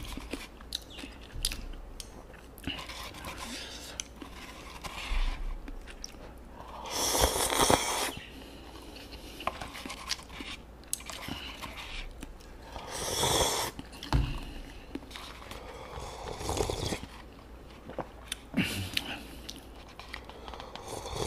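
Close-miked eating of kimchi cup ramen: chewing with small wet clicks throughout, and two longer slurps of noodles and broth from the bowl about seven and thirteen seconds in.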